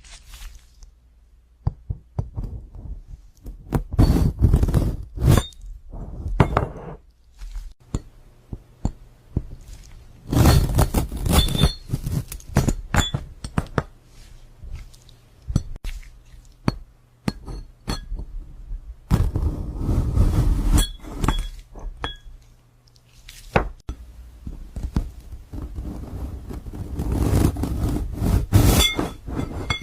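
Glass objects being cut and breaking: repeated clinks, cracks and crunching, several hits leaving a short high ring, coming in four bursts with quieter gaps between.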